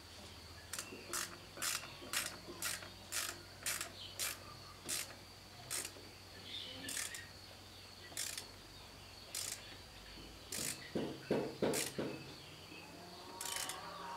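CAV 296 spin-on diesel fuel filter on a Fiat 450 tractor being twisted by hand: a run of sharp scuffing clicks about twice a second, then scattered ones and a louder cluster of knocks near the end.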